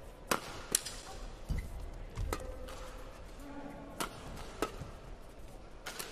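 Badminton rackets striking a shuttlecock in a rally: about six sharp, separate cracks, irregularly spaced, with a few low thuds from players' footwork on the court.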